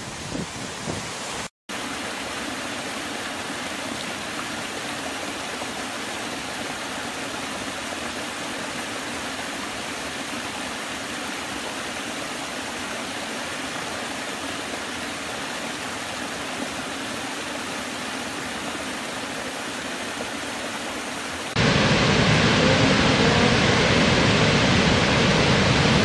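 Falling water: a river briefly heard pouring over a waterfall's lip, a short dropout, then a small woodland cascade over mossy rock ledges giving a steady, even rush. Near the end the sound cuts suddenly to a much louder, deeper rush from a large waterfall plunging into a spray-filled gorge.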